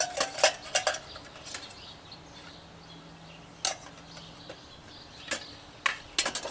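Metal clinks and rattles from a stainless steel camping cook kit being handled: pot, lid and folding wire handle knocking together as the pieces are fitted. A quick cluster of clinks at the start, a single clink midway, and another cluster near the end.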